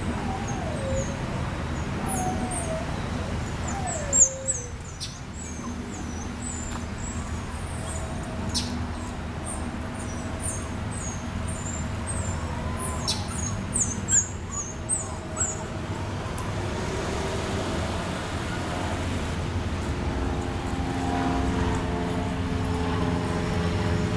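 A dog whining a few times in the first seconds, with a sharp knock about four seconds in. Small birds chirp through the middle over a steady low traffic rumble, and near the end a vehicle hum builds.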